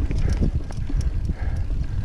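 Mountain bike ridden fast over rough singletrack: a steady low rumble of wind and trail noise, with quick, irregular clicks and rattles from the bike jolting over the ground.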